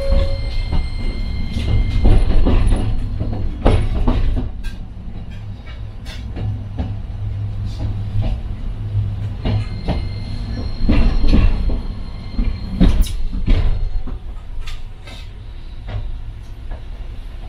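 Toden Arakawa Line tram running along its track, heard from inside the car: a steady low rumble of wheels and running gear, with irregular clacks and knocks from the wheels on the rails. A faint high thin whine comes in near the start and again partway through.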